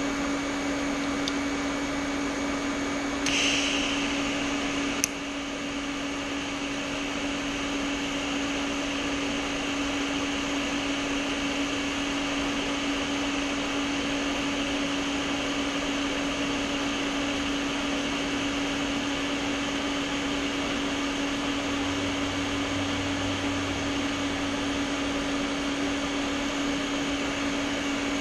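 Water-cooled TIG welder running steadily through a short test weld on thin stainless steel, its cooler giving a constant hum. A brief hiss comes about three seconds in, and a sharp click follows about five seconds in.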